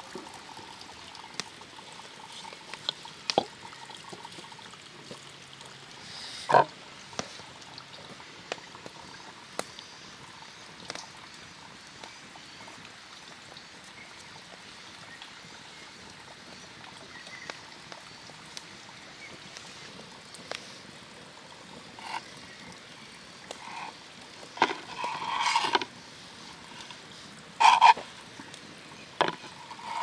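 Hands working soft dough in flour on a wooden board and tray: soft pats, rubs and small taps over a steady background hiss, with one sharper knock about six seconds in and a few louder short sounds near the end.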